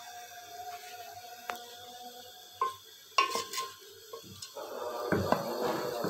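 Wooden spoon stirring chicken and masala in a metal pot, with a few scattered knocks and scrapes against the pot.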